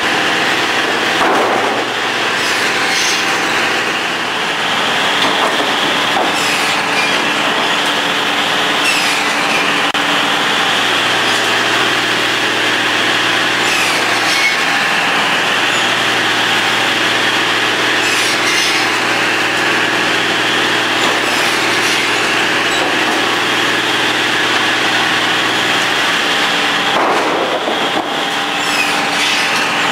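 KMC mechanical chop saw running, its saw blade cutting through boards again and again over a steady machine drone, each cut swelling and fading every few seconds, with a few knocks as boards are handled.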